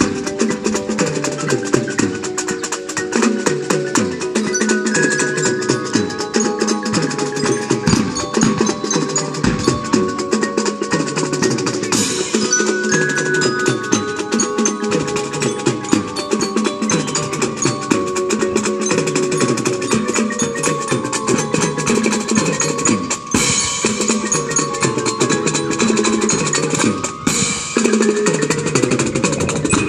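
Marching band playing: brass and drums with a steady stream of drum strokes under sustained melody notes.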